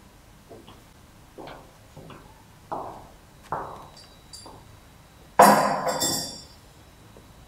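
Footsteps on a hard floor, about one step every three-quarters of a second. About five and a half seconds in comes a louder clink with a brief ringing, as of a ceramic mug set down on a wooden table, mixed with a short rustle.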